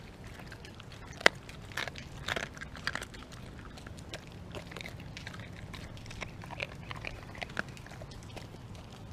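A pit bull–husky mix dog chewing raw chicken: wet biting and crunching at irregular intervals, with one sharp crack about a second in.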